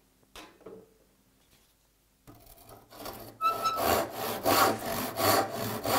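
A Western handsaw cross-cutting a softwood board. It is near silent for about two seconds apart from a light knock, then light starting strokes build into quick, even full sawing strokes.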